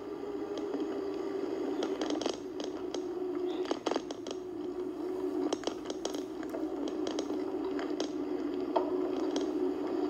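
Riding noise from a bike-lane ride video played back on a screen and picked up through its speaker: a steady rumble with frequent sharp clicks and rattles.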